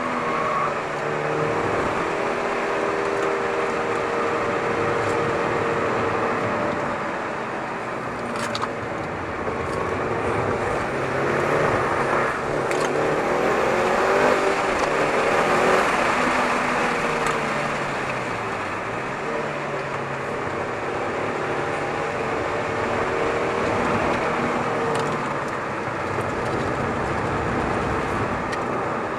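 Mitsubishi Lancer Evolution VIII's turbocharged four-cylinder engine pulling hard around a circuit, its revs rising and falling through the corners and dipping then climbing again about two-thirds of the way through. Heavy wind and road noise rush past the roof-mounted camera's microphone.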